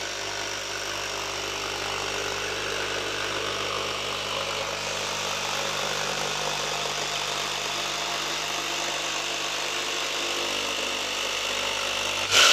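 Milwaukee M12 FUEL FJS cordless brushless jigsaw sawing through a board with its pendulum action on setting 2: a steady, even saw noise with little sign of strain, rising briefly louder right at the end as the cut finishes.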